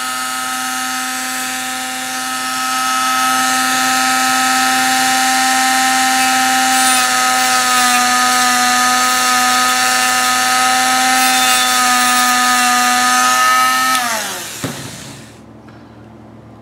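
Handheld rotary tool with a cutoff disc running at steady high speed with a constant whine, used to grind down a small plastic tablet button. About fourteen seconds in it is switched off and the whine falls in pitch as the motor spins down.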